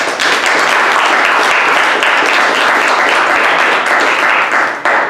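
Audience applauding at the end of a talk, steady and dense, then dying away near the end.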